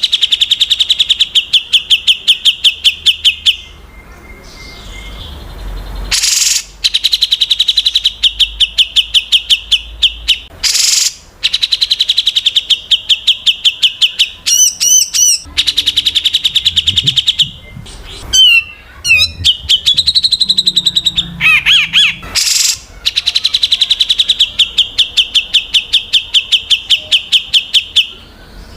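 Songbird song of the kind played as isian (filler song) for white-rumped shamas to learn: long runs of rapid, evenly repeated high chirps, about ten a second, broken by short stretches of gliding whistled notes.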